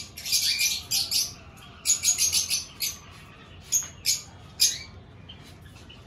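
A flock of small pet parrots chirping and chattering, with quick, high chirps coming in clusters and short pauses between them.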